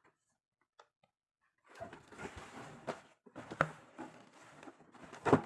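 Rustling and handling of a parcel's packaging as it is opened, with scattered clicks and a couple of sharp knocks, starting after a second or so of near silence.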